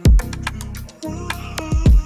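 Background music: an electronic beat with heavy bass hits and sharp percussion.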